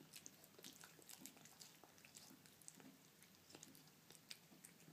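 Faint, irregular clicks and smacks of a long-haired cat chewing wet food chunks from a bowl.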